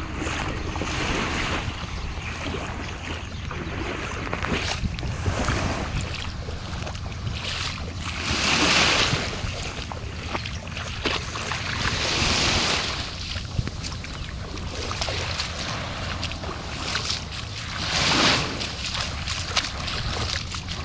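Small waves lapping and washing up on a sandy beach, with three louder washes of hiss about nine, twelve and eighteen seconds in, over a steady low rumble.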